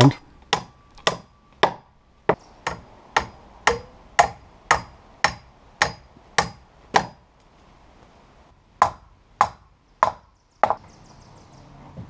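Hammer blows on a doubled wooden 2x4 ledger board, sharp strikes about two a second. They stop briefly about seven seconds in, then a few more blows follow.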